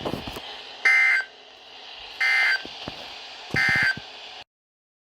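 Emergency Alert System end-of-message signal: three short, buzzy digital data bursts about a second and a half apart over a hissy radio feed, marking the end of the severe thunderstorm warning. The feed then cuts off to dead silence.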